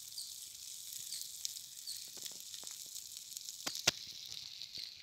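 Oil sizzling steadily in a flat pan over a wood fire as spiced egg pieces on skewers fry, with scattered small crackles and one sharp pop about four seconds in.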